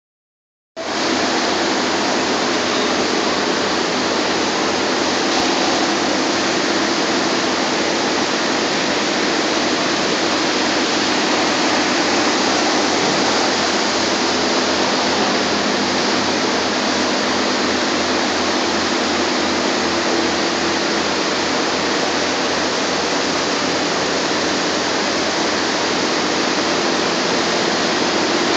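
Steady loud rushing noise, with a low hum and a faint regular throb underneath, starting abruptly just under a second in.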